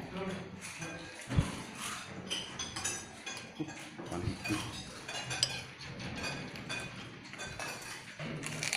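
Spoons and forks clinking against plates as people eat, with scattered small clinks and one dull thump about a second and a half in.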